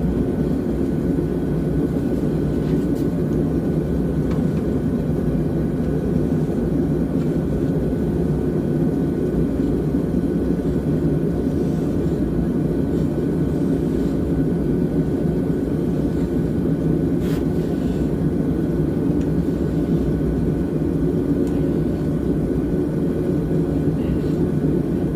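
A forge running steadily as a bar heats in it: a constant low rushing noise with a faint steady whine, and a couple of faint clicks.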